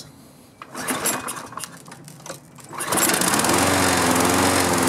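A Toro Recycler walk-behind mower's engine being started: a few seconds of irregular clatter, then the engine catches about three seconds in and runs steadily.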